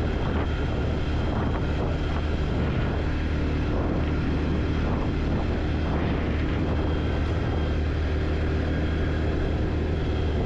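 Quad bike (ATV) engine running steadily at an unhurried riding pace, a constant low drone.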